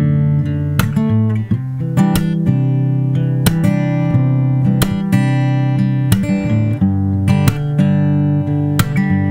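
Acoustic guitar played in a steady rhythm, chords struck about every two-thirds of a second with the notes ringing on between strokes. Recorded raw through a Maono AU-903 Fairy USB condenser microphone held close to the guitar.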